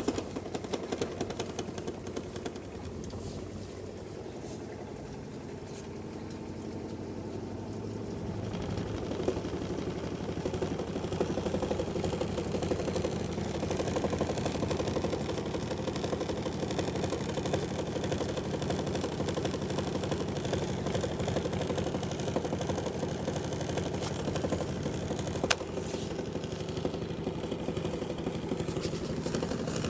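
Washing machine running with a rapid, continuous clatter and knocking over its motor hum, growing louder from about eight seconds in: the banging noise its owner reports as a fault.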